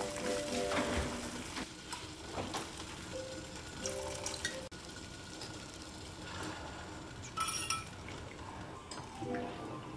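Water boiling in a stainless steel pot, with metal clinks of the pot lid in the first second. Cooking wine is poured into the water about four seconds in, and frozen baby octopus goes in with a short splash about seven and a half seconds in.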